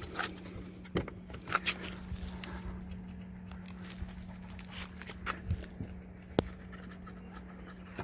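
Faint handling of a car side-mirror housing: a few small plastic clicks and scrapes as fingers work its tabs and parts loose, over a steady low hum.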